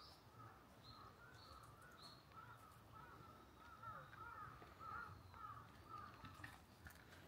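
Faint birds calling: a steady string of short calls a few times a second, with thin higher chirps in the first two seconds.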